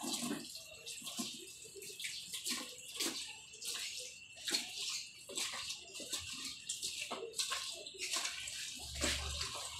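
Guinea pigs munching on lettuce and vegetables: irregular, crisp crunching and rustling, with a brief low rumble near the end.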